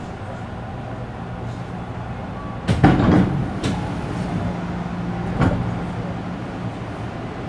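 Tobu commuter train car running, heard from inside: a steady rumble of wheels on rail with a low motor hum. There are sharp clunks of the wheels passing over rail joints or points about three seconds in, again half a second later, and once more near five and a half seconds; the first is the loudest.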